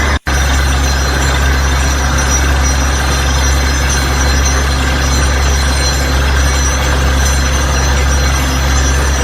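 Small DC motor running steadily with a constant hum. The sound cuts out for a split second about a quarter second in, then carries on unchanged.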